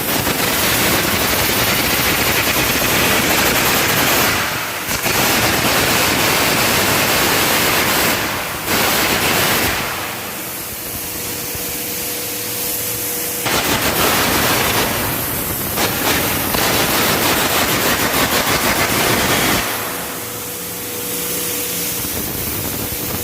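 Air carbon arc gouging of a weld root: a loud, rough, crackling hiss in long runs that break off briefly twice. About ten seconds in and again near the end it stops, leaving a quieter steady hum with a thin tone.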